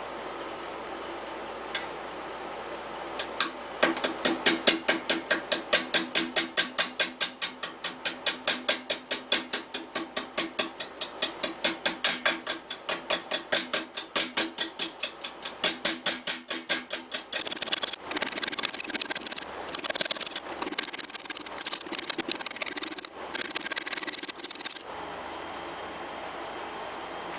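Wood lathe spinning an off-centre blank of wet pecan, with a turning tool striking the high spots on each turn as a fast, even series of knocks, several a second, while it roughs the out-of-round blank down. About midway the cutting becomes more continuous and irregular, and near the end the cut stops and only the lathe is heard running.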